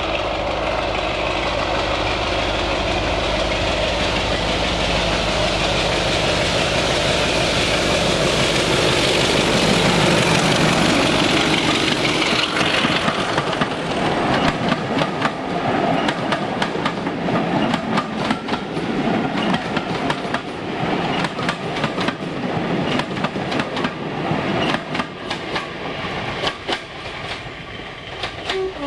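Class 33 diesel-electric locomotive's Sulzer engine working hard as it approaches and passes at the head of a passenger train, loudest about ten seconds in. After it, the coaches' wheels clatter rhythmically over the rail joints, fading as the train draws away, with a brief horn note right at the end.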